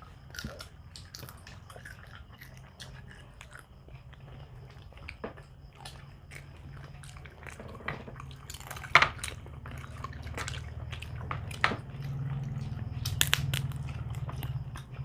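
People chewing and biting food close to the microphone, with scattered short crunches and smacks, the sharpest about nine seconds in. A low steady hum runs underneath and grows louder from about twelve seconds in.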